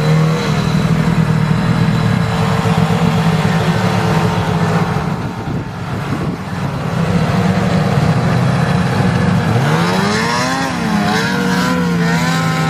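Snowmobile engine running steadily, then revving up hard, with the pitch rising, dipping and climbing again, as the machine takes off through deep snow near the end.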